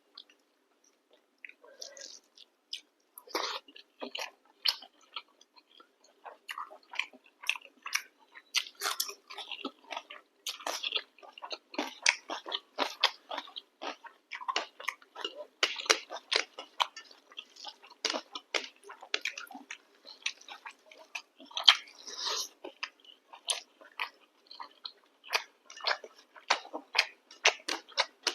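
Close-up chewing and eating sounds: a person chewing and biting food with many small, irregular wet clicks and crackles.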